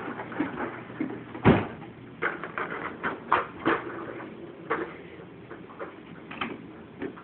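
Short plastic knocks and clicks from a baby's push-along toy train walker being moved, with one loud thump about a second and a half in.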